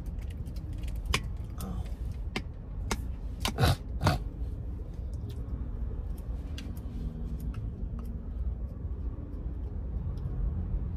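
Steady low rumble of a car's cabin while driving, with a few sharp clicks about one second, three and a half and four seconds in.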